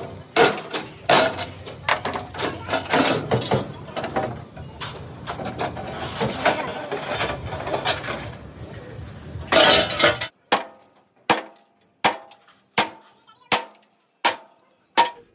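Metal-on-metal knocking and clatter for about ten seconds. It cuts off abruptly, and then come single hammer blows on steel at an even pace, about four every three seconds, each ringing briefly.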